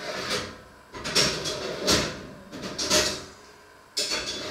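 Kitchen utensils clattering and knocking as someone rummages through a kitchen drawer, in a run of irregular rattles and knocks.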